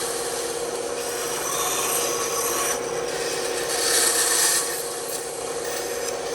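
Bandsaw running with a steady hum, its blade cutting into wood in three spells of high hiss about a second each as the piece is fed and turned in a tight cut, chewing the waste into sawdust.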